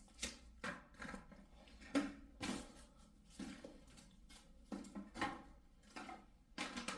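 Irregular small clicks, taps and knocks of hands handling hard objects on a work surface, a few each second with the sharpest about two seconds in.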